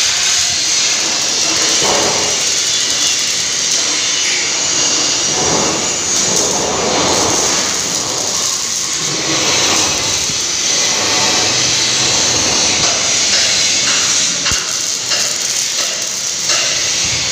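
Steady, loud hiss of workshop background noise, with a few faint knocks.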